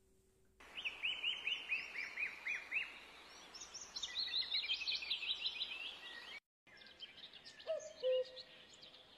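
Birdsong starting suddenly over a steady background hiss: a quick run of short falling chirps, then higher, faster trills. It breaks off briefly about six seconds in, and a few lower whistled notes come near the end.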